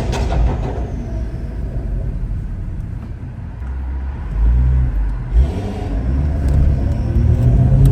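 Stage 2-tuned BMW 540i with a custom exhaust, its engine running with a deep rumble. The rumble eases off a few seconds in, then swells again, with one sharp pop a little past halfway and the note starting to rise near the end as it pulls away.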